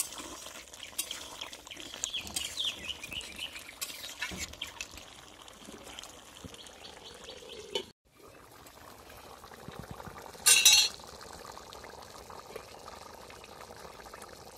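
Metal spatula stirring and scraping chicken curry in a steel kadai, with clinks against the pan and the curry bubbling. About ten seconds in, a short loud scrape as the pot's steel lid is handled.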